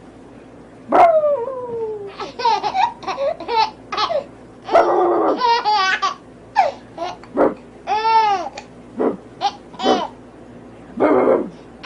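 A baby laughing in repeated fits of short, high-pitched giggles, set off by barks from a pink unicorn toy.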